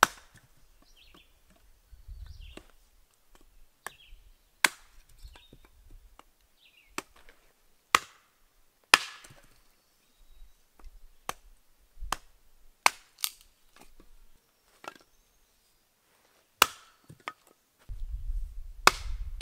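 Hatchet chopping wood on a stump chopping block, splitting kindling. Sharp, separate cracks come irregularly, a second or more apart and sometimes in quick pairs.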